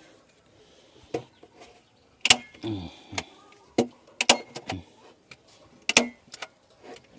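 About half a dozen irregular, sharp knocks and clicks of parts and tools being handled on a speaker cabinet during assembly. Some knocks carry a short, low ringing.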